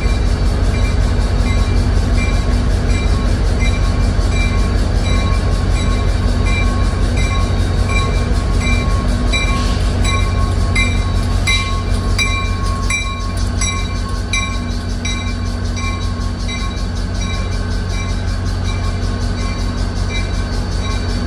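NJ Transit commuter train rolling slowly into the station with its bell ringing steadily, about three strikes every two seconds, over a low rumble of the passing cars. A few sharp clicks come from the wheels partway through as the cars go by.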